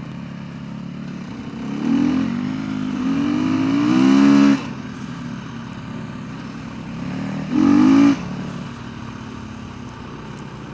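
Motorcycle engine riding slowly off-road, with a rising burst of throttle that is chopped off sharply about four and a half seconds in, and a second short throttle blip near the eight-second mark.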